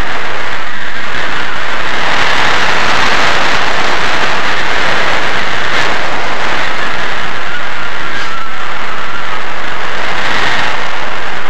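Loud, steady wind noise rushing over a helmet-mounted camera's microphone during a parachute jump, with a faint thin whistle entering near the end.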